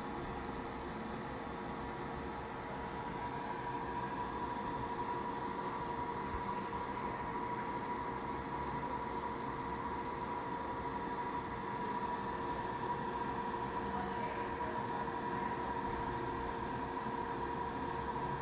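A small machine running steadily, with a constant hum and a higher steady whine over a bed of hiss.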